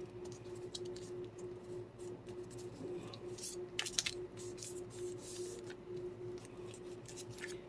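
Paper craft pieces being handled and pressed into place on a tag: light rustles and small taps of cardstock, the sharpest a little after three and four seconds in, over a steady faint hum.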